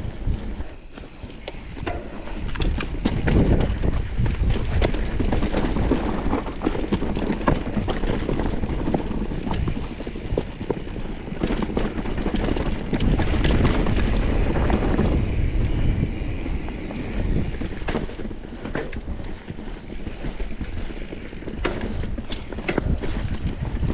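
Mountain bike ridden down a rocky trail: tyres crunching over stones and the bike rattling, with many sharp clatters and knocks over a low rumble of wind on the microphone.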